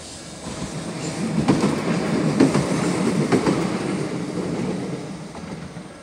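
Hiroden (Hiroshima Electric Railway) articulated low-floor tram running past at speed. Its wheels rumble on the rails, with a few sharp knocks over rail joints. The sound swells to a peak a couple of seconds in, then fades as the tram moves away.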